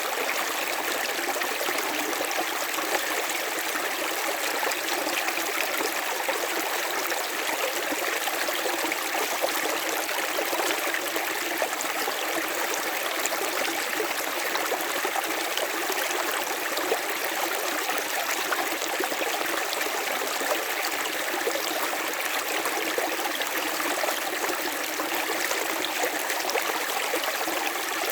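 River water flowing steadily over rocks, a continuous rushing and splashing with little low rumble.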